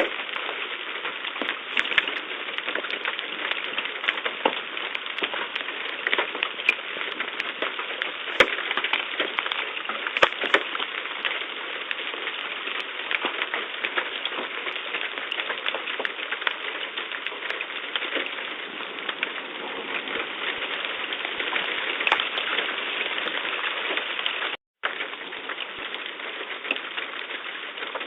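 Heavy rain mixed with hail, a dense steady hiss of water on hard surfaces with sharp knocks of hailstones striking all through it. A few of the hits are louder, about eight and ten seconds in. The sound drops out for a split second near the end.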